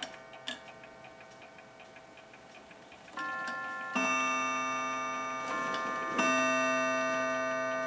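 Restored German mantel clock ticking faintly, then its chime sounding: about four struck notes in the second half, each ringing on and slowly dying away.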